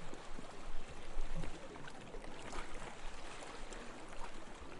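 Soft, steady water ambience: a gentle wash of noise with faint scattered crackles.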